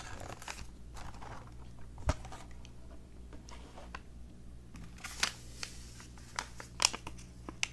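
Handling of a cardboard box of instant spiced apple cider packets: scattered light taps and rustles, with one thump about two seconds in, then a run of sharper clicks and crinkles near the end as a packet is taken out.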